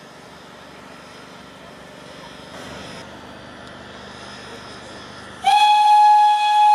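OKz32 steam locomotive's steam whistle: one loud, long blast at a single steady pitch that starts abruptly about five and a half seconds in and is still sounding at the end, after a few seconds of low, even background noise as the train rolls in.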